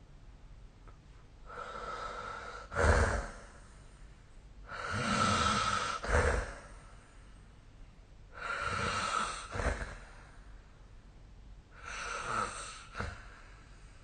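A sleeping person snoring: four breaths about three and a half seconds apart. Each is a noisy breath with a thin whistle in it that ends in a short, louder snore, the loudest about three seconds in.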